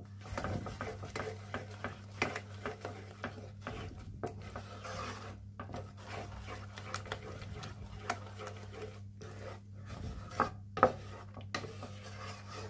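Wooden spatula stirring and scraping thick almond halwa paste around a nonstick pan: a continuous run of irregular scrapes and soft knocks over a steady low hum, with two louder strokes near the end. The paste has thickened and is being stirred without pause to keep it from catching on the bottom of the pan.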